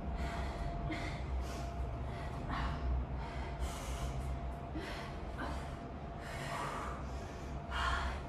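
A woman breathing hard during a strenuous exercise: sharp breaths in and out through the mouth and nose, about one a second.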